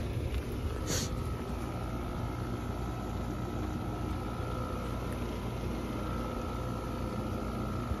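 2010 Trane XL15i heat pump outdoor unit running in heat mode: a steady, fairly quiet hum from its Alliance scroll compressor and condenser fan, with a faint steady whine over it. A short scratch about a second in.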